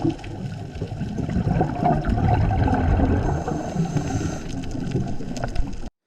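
Sea water rushing and splashing, a steady noisy wash with a low rumble and scattered small clicks, cutting off abruptly near the end.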